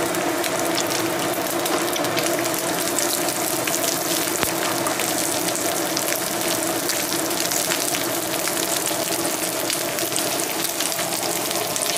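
Dried anchovies and a lumpia frying in hot oil in a nonstick pan: a steady sizzle full of fine crackles, with a steady hum underneath.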